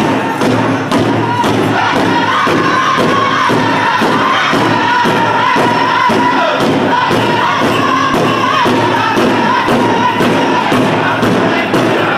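Powwow drum group beating a large drum in a fast, steady beat, nearly three strokes a second, with the singers' high voices carrying the fancy shawl song over it.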